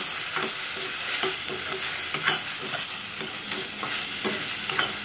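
Sliced onions and green chillies sizzling in hot oil in a steel kadai, with a spoon repeatedly scraping the pan as they are stirred and fried.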